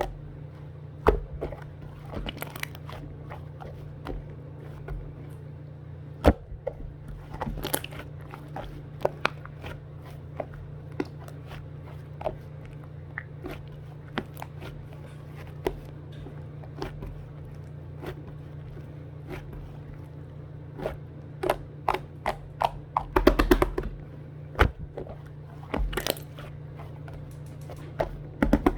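Scattered clicks, taps and short crunching handling sounds, in clusters, over a steady low hum.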